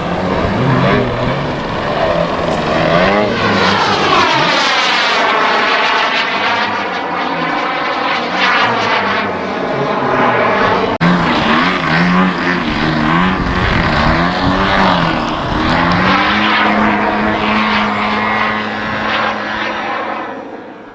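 Propeller aircraft engine in flight, its pitch rising and falling as it throttles and passes by. The sound breaks off abruptly about halfway, resumes, and fades out at the end.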